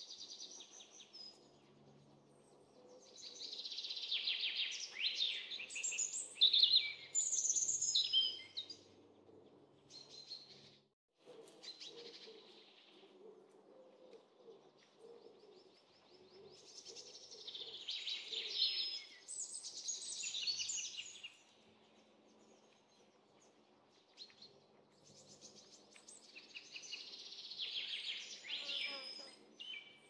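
Birds singing and calling in three bouts of a few seconds each, with high chirps and trills over faint background noise.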